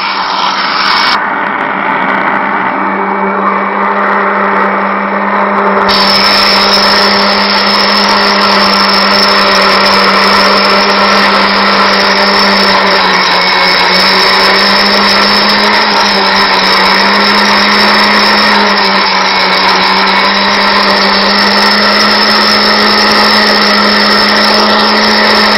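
Homemade flour mill driven by a vacuum cleaner motor, running continuously at one steady pitch. It gets a little louder and brighter about six seconds in.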